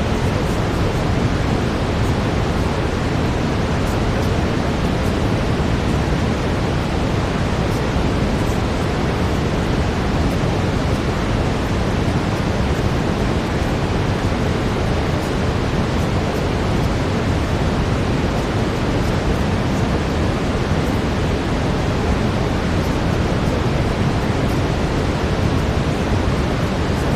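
Steady brown noise, a deep, even hiss heavier in the low end, unchanging throughout.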